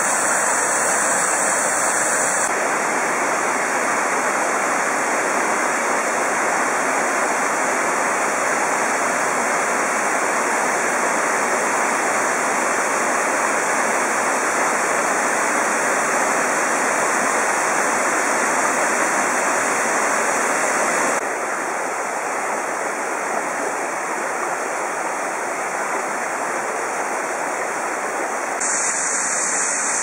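Small waterfall cascading over rock into a pool: a steady rush of falling water. The sound shifts abruptly in tone and loudness three times, a few seconds in, about two-thirds through and near the end.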